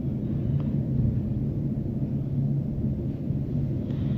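Steady low rumble of a lit gas stove burner heating a pan, with a faint hum under it.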